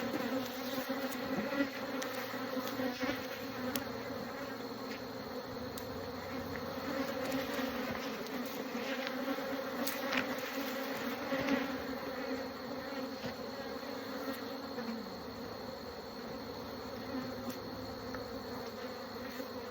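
Honeybees humming steadily over an opened hive whose colony has lost its queen, with a few light clicks scattered through.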